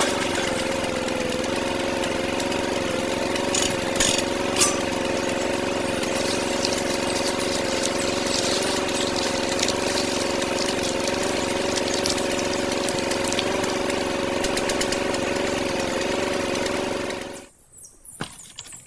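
A small electric motor of a homemade miniature flour mill runs at a steady pitch with a constant whine, and a few light clicks come about four seconds in. The sound cuts out abruptly near the end.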